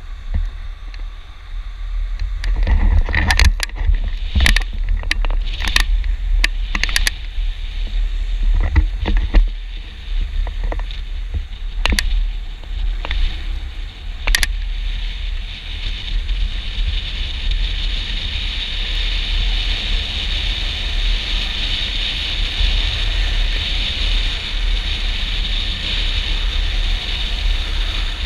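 Longboard wheels rolling fast on asphalt with wind rumbling on the camera microphone, broken by several sharp knocks in the first half; later a steady rolling hiss builds and holds as the board gains speed.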